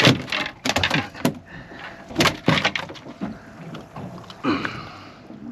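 Irregular sharp knocks and slaps on a fishing boat as a freshly landed mackerel is handled on deck, most of them in the first two and a half seconds.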